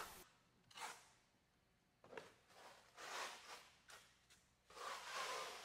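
A few faint swishing strokes of a hand trowel spreading and smoothing wet stucco finish across a wall, spaced about a second apart.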